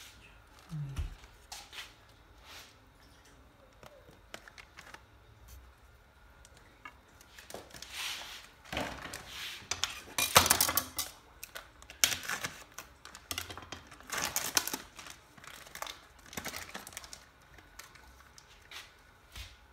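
Crinkling and tearing of the plastic film on a tray of raw chicken as it is cut open with a knife and handled, with light clicks and knocks of the knife and tray on a plastic cutting board. The rustling is busiest in the middle stretch.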